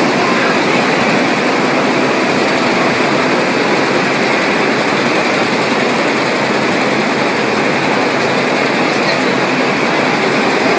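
Steady rushing machine noise from a CO2 laser marking machine engraving leather, with a constant thin high-pitched whine.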